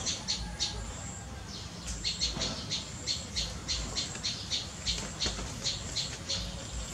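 A bird chirping: a quick series of short, high-pitched chirps, about four a second, with a short pause about a second in.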